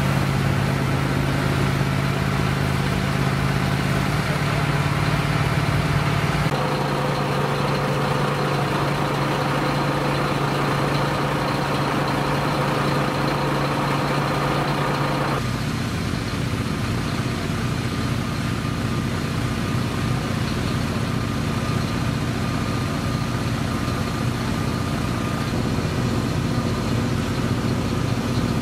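Fire engines' diesel engines running steadily with a constant hum. The hum changes abruptly twice, about six and fifteen seconds in.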